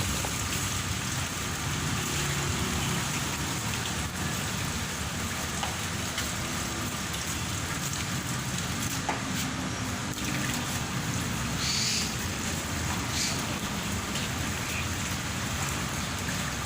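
Steady hiss of water spraying down like rain, from a bird bath in which the birds are being sprayed with water.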